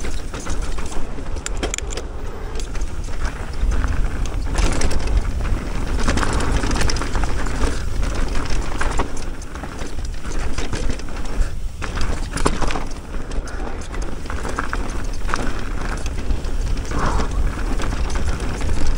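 Fezzari Timp Peak e-mountain bike descending a dirt trail: a steady rush of wind over the microphone and knobby tyres rolling on dirt, with frequent short rattles and clatters as the bike goes over bumps.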